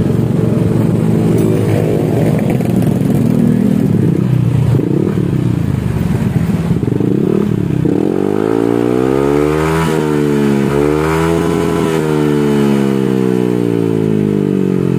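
Yamaha NMAX 155's single-cylinder engine running through an aftermarket SKR racing exhaust, idling with small throttle blips, then revved up about eight seconds in and let fall back near the end. The revs climb cleanly with no stutter.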